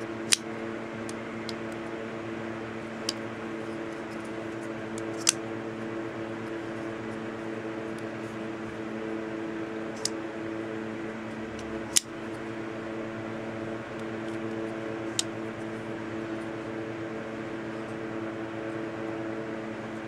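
Spyderco Persistence liner-lock folding knife being flipped open and closed, its blade snapping into place with sharp single clicks every few seconds. Under it runs a steady humming drone like a fan.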